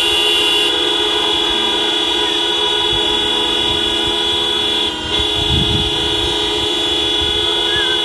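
Many car horns honking at once in a continuous, overlapping blare, with a brief break about five seconds in. The drivers are sounding their horns in support of the street protest.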